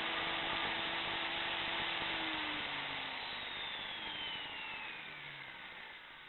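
CNC machine machining bronze, running with a steady whir, then winding down: from about halfway through, a whine falls in pitch while the sound fades away.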